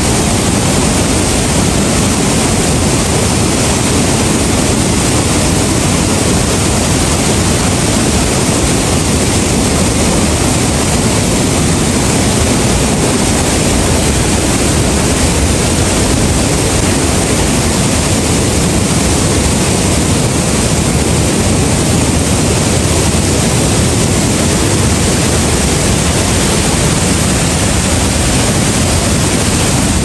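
Waterfall and a rain-swollen, muddy stream pouring over rocks: a loud, steady rush of water with no break.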